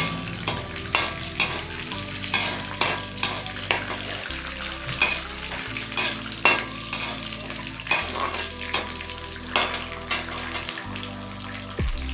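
Peanuts sizzling as they fry in hot oil in a metal kadhai. A perforated steel slotted spoon stirs them, scraping and knocking against the pan, with irregular strokes about twice a second.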